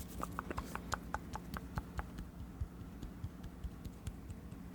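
Close-miked ASMR mouth sounds: a quick run of wet tongue and lip clicks, several a second, thinning out after about two seconds.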